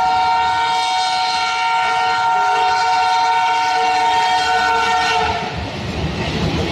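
WDM3A diesel locomotive's air horn sounding one long steady blast that cuts off about five seconds in. The rumble of the moving train carries on after it.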